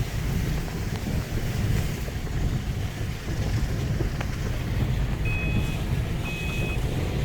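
2008 Subaru Impreza WRX driving over a rough dirt backroad, a steady low rumble of the car and its tyres heard from the cabin. From about five seconds in, a short electronic warning beep from the car repeats about once a second.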